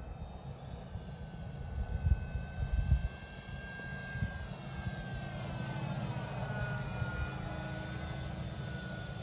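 Blitz RC Works Cessna 182 radio-control scale model flying overhead, its motor and propeller giving a steady high whine that drops slightly in pitch about five seconds in as the plane passes. Gusts of wind buffet the microphone around two and three seconds in.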